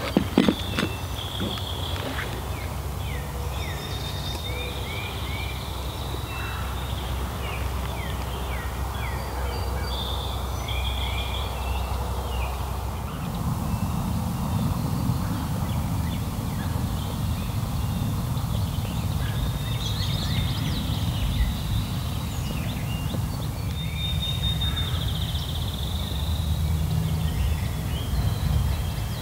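Several songbirds singing, repeated short whistles and trills, over a steady low rumble that gets louder about halfway through. A few sharp clicks right at the start.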